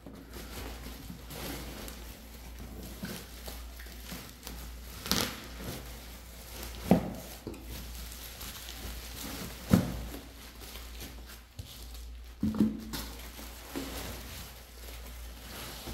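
Bubble wrap crinkling and rustling as bubble-wrapped boxed sets are lifted and shifted in a cardboard carton, with several knocks of the boxes bumping or being set down.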